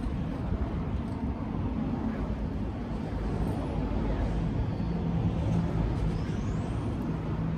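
A motor vehicle's engine running with a steady hum under low rumbling noise.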